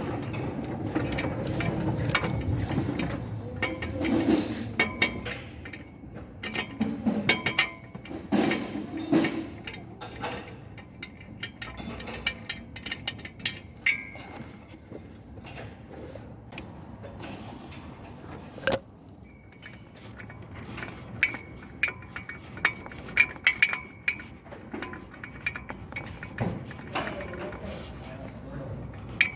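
Metal hand tools and parts clinking and knocking in irregular, scattered clicks while an engine's EGR cooler is being taken apart.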